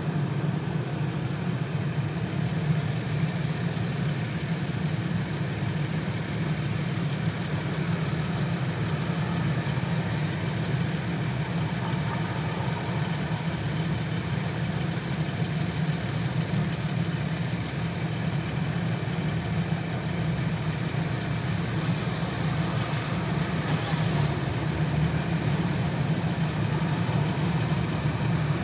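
Car running in traffic: steady engine and road noise with a strong low rumble.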